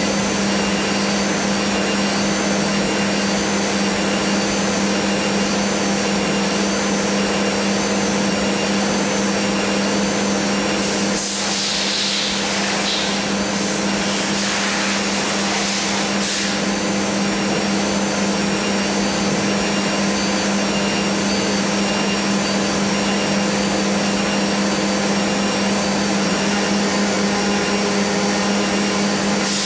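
CNC milling machine running, its spindle milling a metal pattern block: a steady machine drone with a constant low hum. A patch of higher hiss rises over it for a few seconds about eleven seconds in.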